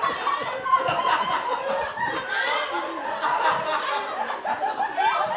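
Theatre audience and actor laughing and chuckling together, many voices overlapping without a break.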